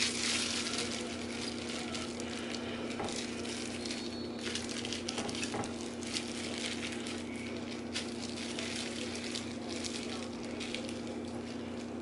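Knife trimming skin and fat off a raw whole chicken on a cutting board: wet, crackly handling sounds with small clicks, over a steady low background hum.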